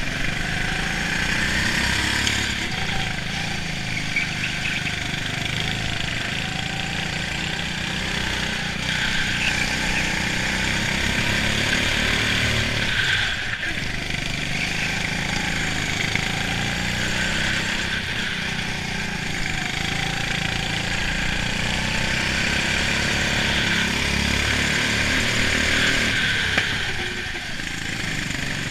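Go-kart engine recorded on board, running hard with its note rising and falling as the kart accelerates and lifts off for the corners, with a steady hiss over it; it drops away briefly about halfway through and again near the end.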